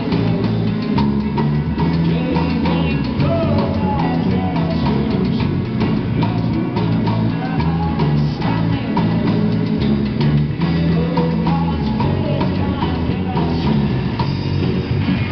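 Live rock band playing an instrumental passage: drum kit, a bass line and electric guitars.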